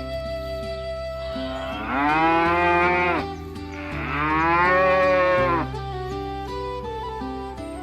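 A cow mooing twice, two long calls that rise in pitch and fall away at the end, the first about two seconds in and the second about four seconds in, over soft instrumental background music.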